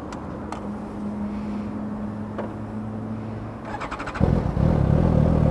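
Motorcycle engine running through an open pipe with its Akrapovič slip-on muffler removed: a steady low hum, a few quick clicks, then about four seconds in the engine note jumps much louder and deeper as the bike sets off.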